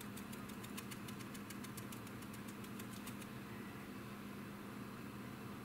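Stiff-bristled brush stippling on a plastic model's wing root: a quick run of light ticks, about six a second, that stops about three seconds in, over a steady low hum.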